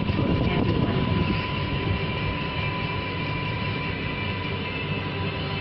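Kuala Lumpur MRT train running along the track, heard from inside the cabin: a steady rumble of motors and wheels on rail with a steady high whine over it.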